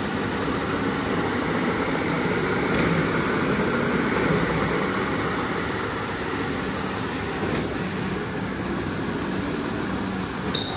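Rug-cleaning machinery running steadily: a motor hum under an even rushing hiss.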